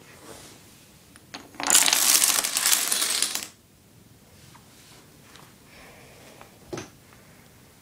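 Dominoes toppling in a chain on a wooden floor: a dense clatter lasting about two seconds starting a little under two seconds in, then a few scattered single clicks as stray pieces fall, one sharper near the end.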